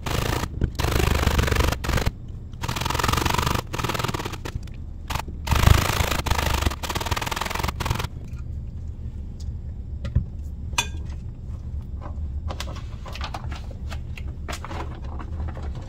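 Zucchini being shredded on a stainless steel box grater: a run of rasping strokes, roughly one a second, for the first half. Then quieter scattered clicks and scraping as the grater and mat are handled, over a steady low hum.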